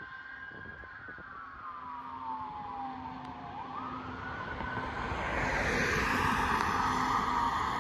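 Fire engine siren wailing in the distance, its pitch slowly falling and then quickly rising again. About five seconds in, a passing car's tyre noise swells up and becomes the loudest sound.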